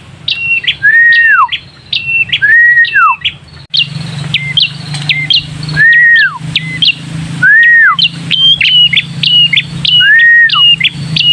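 Red-headed prenjak (prenjak kepala merah), a small warbler, calling back and forth with a recording of its own song. Quick runs of sharp stepped notes alternate with a longer arched whistle that slides downward, repeating about every second and a half. A steady low hum runs beneath from about four seconds in.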